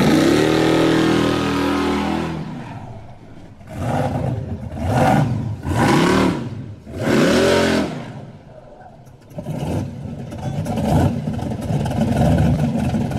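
Supercharged V8 of a Chevy Caprice donk revved hard during a burnout. The engine climbs and holds high for about two seconds, then drops. It is then blipped up and back down several times in quick succession, and settles to a lower rumble with one more rev near the end.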